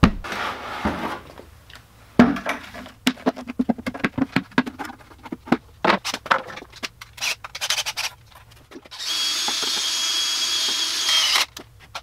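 Irregular knocks and clatter of a plastic five-gallon bucket being handled, then a power drill held down in the bucket runs steadily with a high whine for about two and a half seconds and stops.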